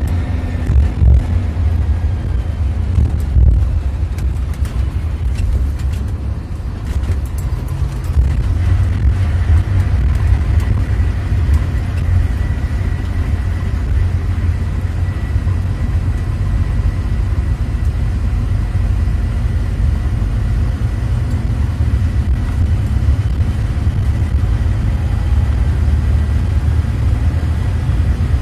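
Bus moving along the road, heard from inside its driver's cabin: a steady low engine and road rumble with a faint high whine, and scattered clicks and rattles during the first several seconds.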